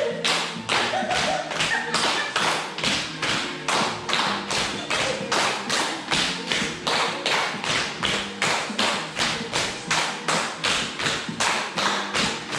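Steady rhythmic tapping, about three to four sharp strikes a second, keeping an even beat.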